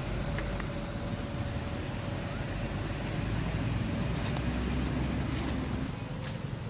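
Low rumble of a motor vehicle engine running nearby, with a faint steady tone over it; the rumble eases off about six seconds in.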